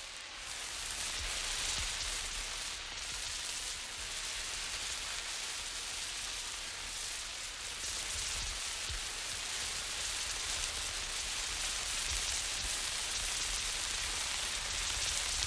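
A lit emergency road flare burning with a steady hiss as it is moved about, the hiss swelling and dipping slightly, with faint low knocks from handling.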